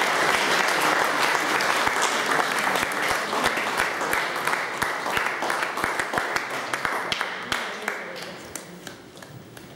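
Audience applauding: dense clapping of a sizeable crowd that thins out and fades away over the last few seconds.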